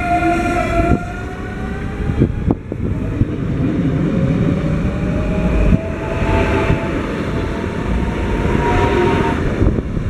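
CFL Class 2200 double-deck electric multiple unit running close past the platform and pulling away, its traction motors whining in several tones that rise slowly as it gathers speed, over a steady rumble of wheels on the rails.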